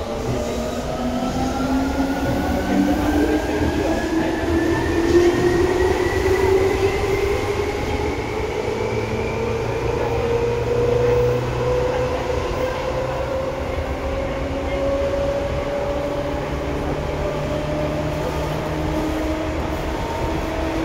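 Seibu 2000 series electric train running under power, heard loud from inside the car. The whine of the traction motors and gears rises steadily in pitch as the train accelerates, then climbs more slowly over the second half, over the rumble of wheels on rail.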